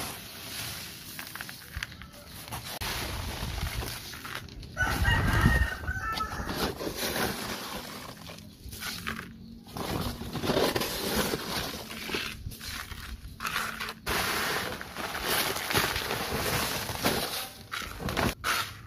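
Hands scooping and working loose potting soil of humus and manure in a plastic basin, a continuous gritty rustling and scraping. A rooster crows once, loudly, about five seconds in.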